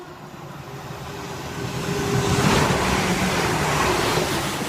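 Class 350 Desiro electric multiple unit passing through at speed: a rushing of wheels and air that swells to its loudest about halfway through and then eases off a little.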